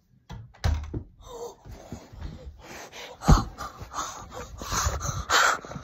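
A boy gasping and breathing hard close to the microphone, with a few sharp thumps, the loudest about three seconds in.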